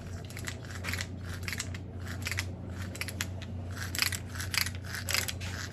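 Irregular clicking and scraping of small parts being handled and fitted together: the pull-start components of a nitro RC engine. The clicks grow busier and louder near the end.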